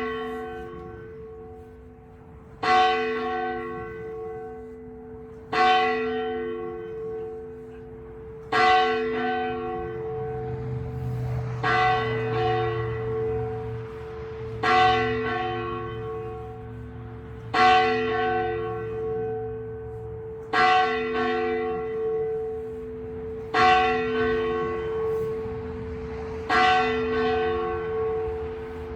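A single church bell tolling slowly, one stroke about every three seconds (nine strokes), each ringing on and fading under the next. It is a memorial toll, rung once for every ten thousand COVID-19 deaths.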